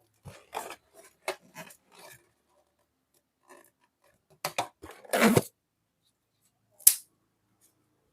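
Balloons being squeezed and popped: a run of short crackling, rubbing noises, a longer burst just after five seconds, then a single sharp pop near seven seconds in.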